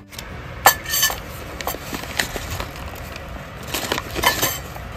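Brown paper food wrapping being unfolded by hand, crinkling, with several light clinks of ceramic plates and a spoon. The sharpest clinks come about a second in.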